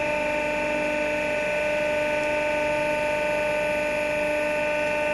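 Steady hum of running workshop machinery, made of several even tones held at one pitch, with no change in level.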